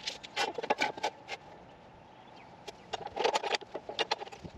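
Clicks and rattles of square steel tubing and a tape measure being handled and set into a chop saw's vise, in two short bursts: one in about the first second and another around three seconds in.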